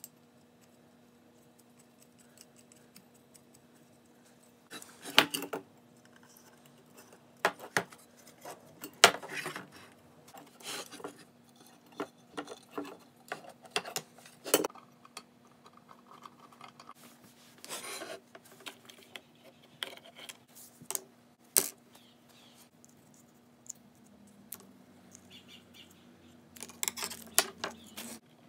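Brass lamp parts clinking and rattling as they are handled and fitted together on a workbench: scattered sharp metal clicks and knocks with pauses between.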